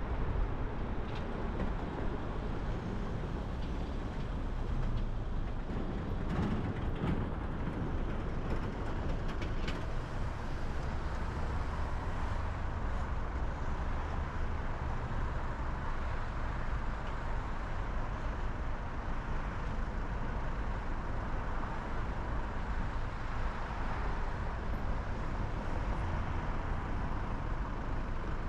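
Steady low rumble of car and road traffic noise as the car moves through city traffic and then waits at a junction, with a few faint clicks in the first half.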